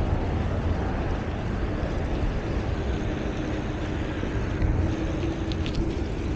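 Wind rumbling on the microphone with tyre and road noise from a bicycle ride, steady throughout; a faint steady hum comes in about halfway and a few faint ticks sound near the end.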